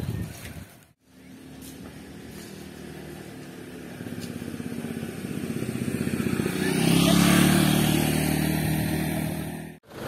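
Mitsubishi Canter dump truck's diesel engine running and revving up, growing louder to a peak about seven to eight seconds in, as the truck strains against being stuck with its rear wheels sunk in a collapsed culvert.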